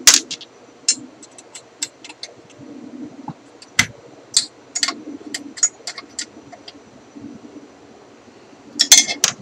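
Scattered sharp clicks and light metallic taps of a tool snugging up the 1/4-20 bolts on a telescope's fork arms, with a cluster of louder clicks near the end.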